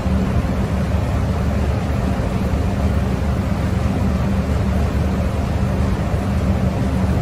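A steady low machine hum with a hiss of noise over it.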